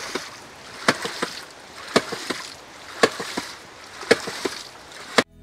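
Hydraulic ram pump clacking about once a second as its waste valve slams shut, each clack followed by a couple of lighter knocks, over the hiss of running water. The sound cuts off suddenly near the end.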